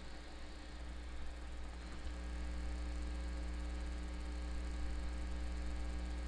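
Steady electrical mains hum, a low drone with a buzz of evenly spaced overtones on top.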